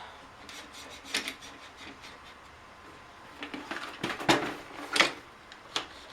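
Handling sounds from the disassembly of a Keurig coffee maker: scattered clicks and knocks of plastic parts and tools set down and moved on a work surface, with a cluster of several knocks about four seconds in.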